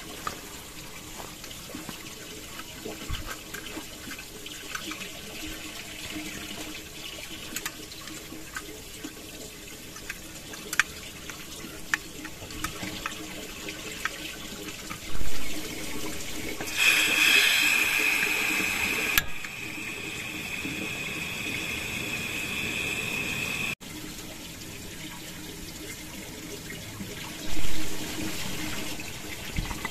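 Small clicks and rattles of a folding portable gas stove being taken from its cloth pouch and unfolded, over a steady rush of flowing water. About halfway through comes a loud thump, then a loud hiss of gas that settles into a steady hiss for several seconds and cuts off suddenly; a second loud thump follows near the end.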